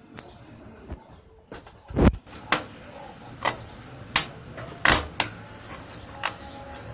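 A series of sharp clicks and knocks, about seven in all, from parts being handled and fitted while a washing machine is put together. The loudest is a dull thump about two seconds in.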